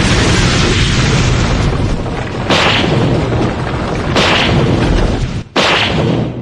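Dragon Ball Z battle sound effects: a continuous rumbling roar of explosions and energy blasts, with fresh booms about two and a half, four and five and a half seconds in.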